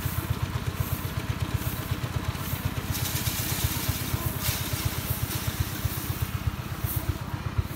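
Small engine running steadily with a fast, even low chugging, powering a rice-threshing drum. A rushing hiss rises over it for a second or so about three seconds in.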